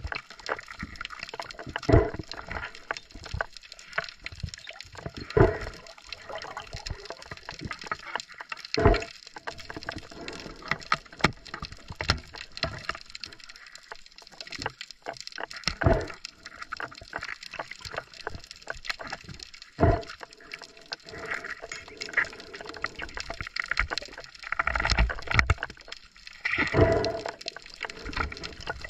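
Underwater water noise of gurgling and sloshing around a submerged camera, with several sharp knocks or splashes a few seconds apart.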